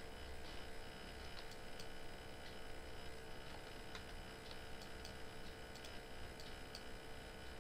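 Faint computer mouse clicks at irregular intervals over a steady background hum.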